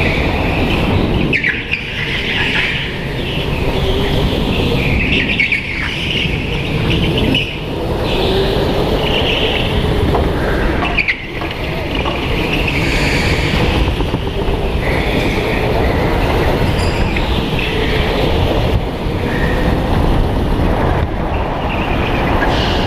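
Onboard sound of a go-kart racing at speed: a steady motor tone over a dense rumble, with the tyres squealing in repeated bursts through the corners.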